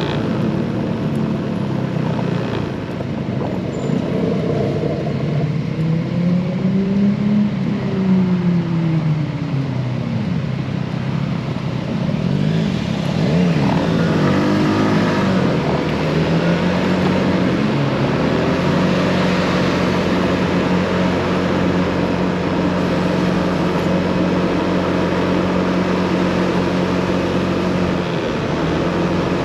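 Motorcycle engine running under way, its pitch rising and falling with the revs a couple of times in the first half, then holding steady.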